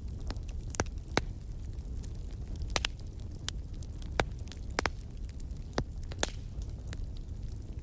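Fireplace fire crackling: scattered, irregular sharp pops and snaps over a steady low rumble of burning.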